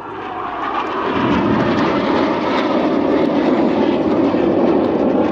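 Jet engine noise from two BAE Hawk jets passing overhead. It swells over the first second or so, then holds loud and steady.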